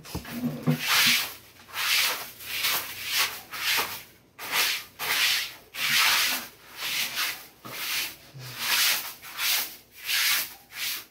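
Rhythmic rubbing or brushing strokes, about one and a half a second, each a short hissing swish.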